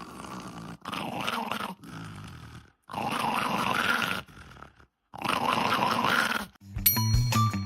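A dog growling in several bouts with short pauses between them; music with pitched notes comes in near the end.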